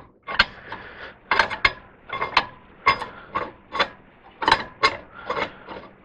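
Ratchet wrench clicking in short, uneven strokes, about two a second, as it works a 1-inch grade 8 threaded rod at a blade tensioner.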